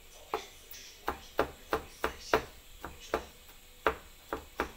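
Kitchen knife chopping on a wooden cutting board: about a dozen sharp, uneven knocks, two or three a second, as ingredients are cut into small pieces.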